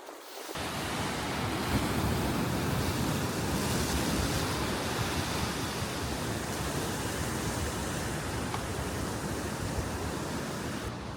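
Sea surf rushing on the shore, mixed with wind on the microphone: a steady rushing noise that starts abruptly about half a second in.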